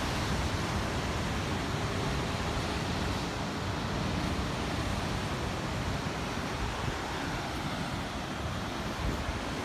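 Steady rush of sea surf breaking on rocks below, with wind buffeting the microphone.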